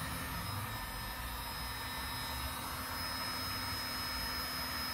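Electric heat gun running steadily: an even blowing hiss with a low hum and a thin high whine.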